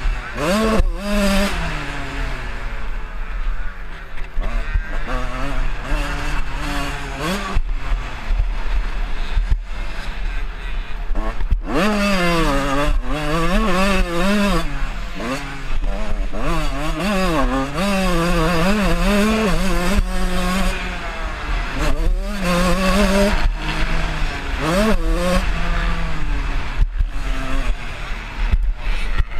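A 125cc two-stroke motocross bike engine revving hard up and down as the rider works the throttle and gears. Its pitch rises and falls over and over, broken by frequent short thumps.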